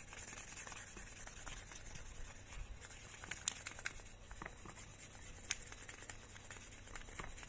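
Sandpaper rubbing back and forth along a screwdriver handle: faint scratchy strokes with scattered light clicks.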